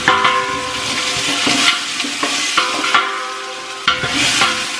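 Chopped onion, peppers, garlic and ginger sizzling in hot olive oil in an enamel stockpot as they are stirred. A few knocks on the pot each leave a brief ringing tone.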